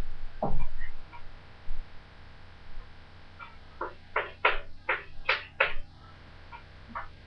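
Chalk tapping on a blackboard as letters are written: a knock about half a second in, then a quick run of about six sharp taps a little past halfway.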